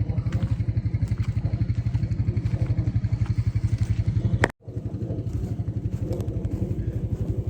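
Four-wheeler (ATV) engine running steadily with a fast, even pulsing beat, cut off abruptly for a moment about halfway through, then running on.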